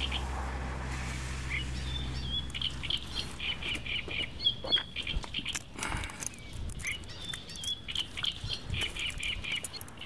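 Small birds chirping over and over, with footsteps and rustling through wet grass from about four seconds in. A low steady hum fades out about three seconds in.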